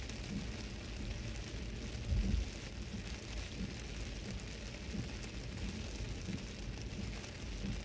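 Heavy rain drumming on a car's body and windscreen, heard from inside the cabin, over steady low road rumble from tyres on the wet road. About two seconds in there is a louder low thump.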